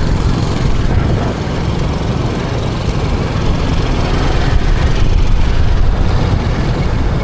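Steady rumble of a motor vehicle running, with a dense low-pitched noise throughout.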